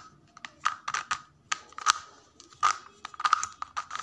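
Plastic 2x2 speed cube being turned by hand, its layers clicking and clacking in a quick, irregular run of about a dozen turns as a move sequence is performed.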